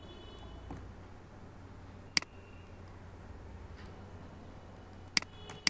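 Computer mouse button clicking: a single sharp click about two seconds in and a few more near the end, as pen-tool anchor points are placed, over a low steady hum.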